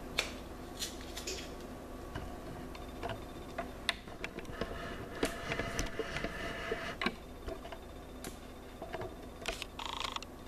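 Light clicks and knocks of kitchen items being handled, with a stretch of crinkly rustling in the middle and a short rustle near the end, over a faint steady hum.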